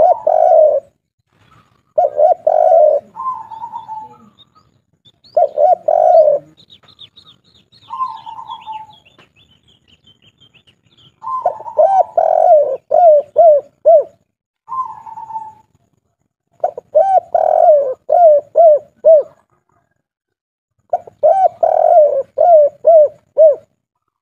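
Spotted dove (tekukur/derkuku) cooing in repeated phrases of the 'kuk 3' song type: a hoarse opening coo followed by a quick run of short clipped coos. A faint high twittering of a small bird runs briefly between phrases, about a third of the way in.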